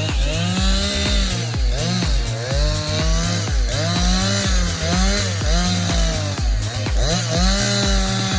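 Chainsaw engine revving up and down again and again, under background music with a steady bass beat.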